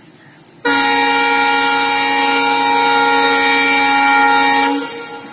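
Air horn of an approaching Indian Railways diesel locomotive sounding one long, steady blast of about four seconds, starting abruptly about a second in and cutting off near the end, with the train's running noise left underneath.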